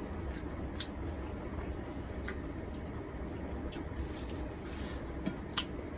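Eating by hand: a few scattered soft clicks of chewing and of fingers mixing rice and curry on a plate, over a steady low hum.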